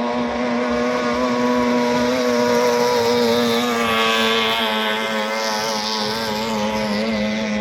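18 hp outboard motor on a racing speedboat running flat out: a steady, high engine note that wavers slightly in pitch around the middle.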